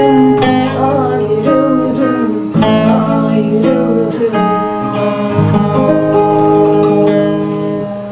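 Acoustic guitar strumming together with a bağlama in a Turkish folk song, with a woman's singing voice over them in the first few seconds. The last chords ring and die away near the end.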